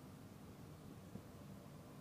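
Near silence: faint low background hum, with one faint tick a little past a second in.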